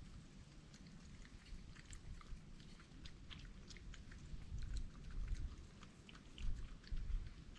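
A wild animal chewing and crunching food, a fast, irregular run of small crunches and clicks, with a few low bumps in the second half.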